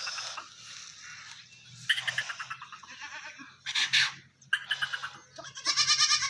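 Goats bleating several times from about two seconds in, with wavering, quavering calls that overlap, the loudest near the end.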